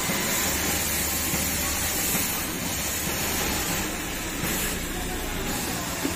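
Industrial single-needle lockstitch sewing machine running steadily as it stitches a fabric strip, over the continuous din of a garment factory floor full of machines.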